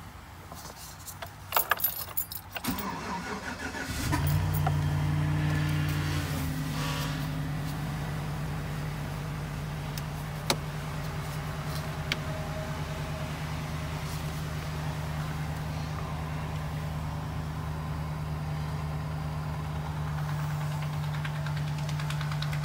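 2010 Chevy Silverado cold-started in sub-zero weather after sitting a while. A few clicks and a second or so of cranking, then the engine catches about four seconds in and runs at a steady idle.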